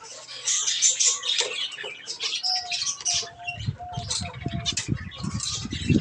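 Flock of small finches, zebra finches among them, chirping and calling at once: a dense run of short high chirps, with a short repeated tone in the middle and a few soft low thuds in the second half.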